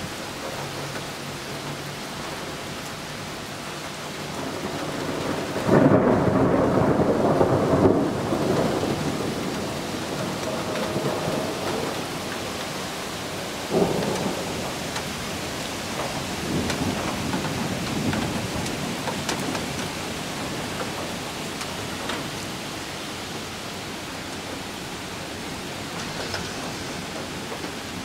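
Steady rain falling with thunder: a rumble that builds to a loud peak about six seconds in, a sharper clap around fourteen seconds, then fainter rolling rumbles.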